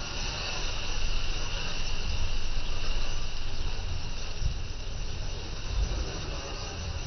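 Water rushing and splashing past the side of a moving boat, a steady hiss, with wind buffeting the microphone in gusts.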